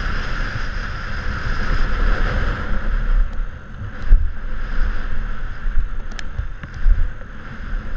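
Downhill mountain bike rolling fast over a gravel trail, heard from a helmet-mounted action camera: steady wind and tyre rush with frequent low thumps from bumps and a few sharp rattles, one about four seconds in and another about six seconds in.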